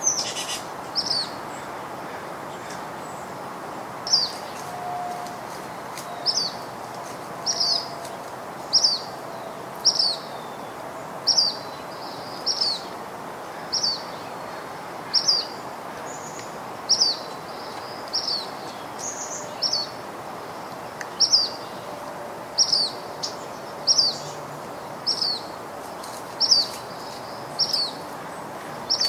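A bird repeating one short, high, falling chirp about once every second and a bit, over steady outdoor background hiss.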